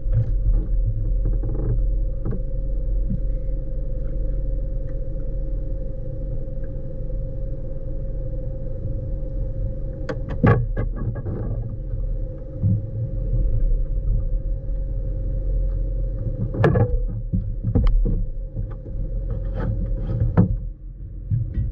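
Steady hum of a bass boat's bow-mounted electric trolling motor over a low rumble of wind and water, the hum cutting out near the end. A few sharp knocks and thumps on the boat as a bass is landed and handled on deck, the loudest about halfway through and several more near the end.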